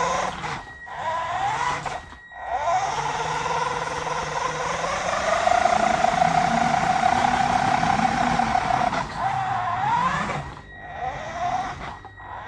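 Toy RC Mini Cooper S's electric drive motor and gears whining, the pitch rising and falling with the throttle in short bursts, then held steady for several seconds in the middle. The owner thinks he can still hear a knocking noise in it.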